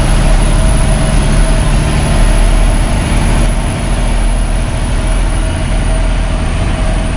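Kenworth T800's Cummins ISX diesel engine running steadily under way, heard from inside the cab as a loud, even drone.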